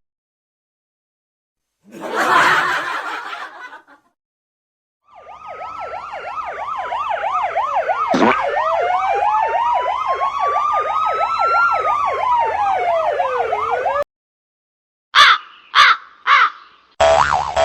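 Toy or cartoon siren sounding for about nine seconds, with a fast warble of about three wails a second over a slower tone that rises and then falls, then cutting off suddenly. It is preceded by a short rushing burst and followed by a few short chirpy blips.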